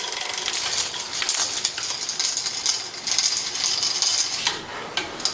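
Metallic clicking and rattling from a road bike's drivetrain as it is worked on: chain running over the sprockets with small rapid ticks and clinks.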